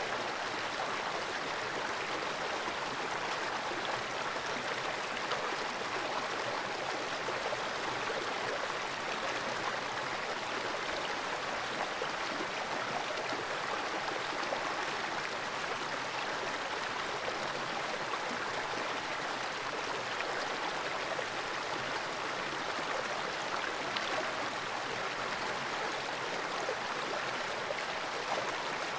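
Fast-flowing freshwater creek rushing steadily: an even wash of moving water with no separate splashes or events.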